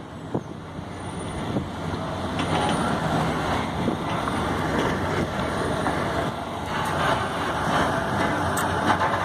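Heavy diesel truck engines running, with steady road noise.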